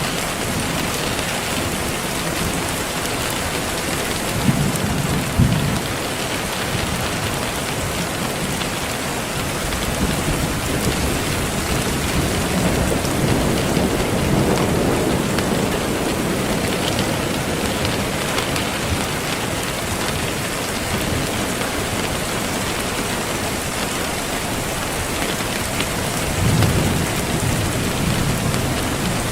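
Steady rain falling, an even hiss, with low thunder rumbles swelling up a few times.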